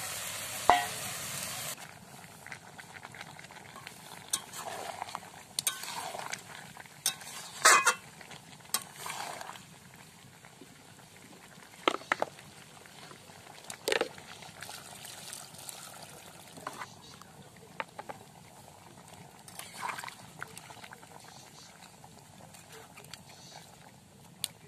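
Chicken and potato curry sizzling in a kadai: a loud hiss for the first two seconds that cuts off suddenly, then a metal spatula scraping and clinking against the pan as the curry is stirred, over a soft sizzle.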